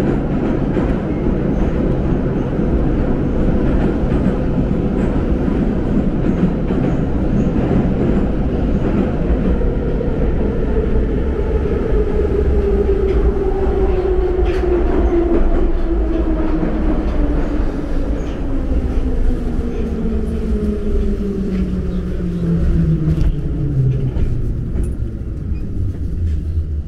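Metro train heard from inside a moving car: a steady rumble of wheels on rail, with the traction-motor whine falling steadily in pitch through the second half as the train slows into a station.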